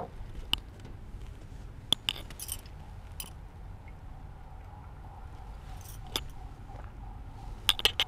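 Scattered light clicks and clinks, about nine short ones spread across the pause, over a faint steady room hum.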